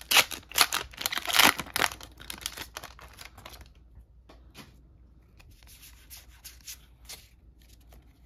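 Foil trading-card booster pack being torn open, several loud ripping and crinkling strokes in the first two seconds. Softer rustling and sliding follow as the cards are pulled out and handled.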